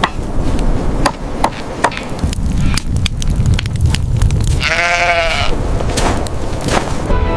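A sheep bleats once, a wavering call of just under a second about five seconds in. A steady low rumble and scattered sharp crackling clicks run underneath.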